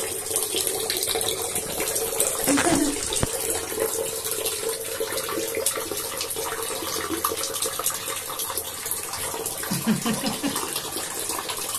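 Tap water running steadily into a bathtub, with a steady tone under the rush for the first half.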